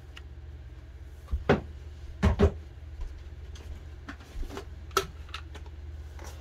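A few light clicks and knocks at uneven intervals, the loudest a quick double knock a little over two seconds in, over a steady low hum.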